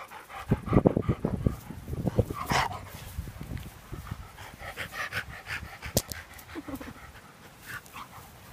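A 15-year-old Labrador Retriever panting close up, loudest in the first couple of seconds, with rustling of fur and grass as it rolls on its back and is rubbed.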